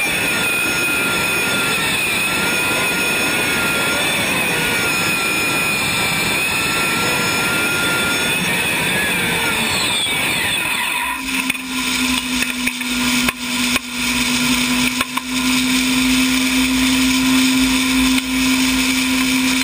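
Isotov TV3-117 helicopter turboshaft engine in a modified pulling tractor, running with a loud rushing roar and a steady high whine. About ten seconds in its pitch falls and the roar drops away, leaving a steady lower hum with rumbling and scattered knocks.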